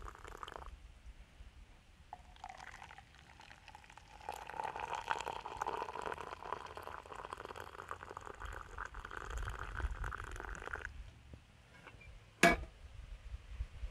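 Water being poured in a steady stream for about six seconds, stopping suddenly, followed by a single sharp click.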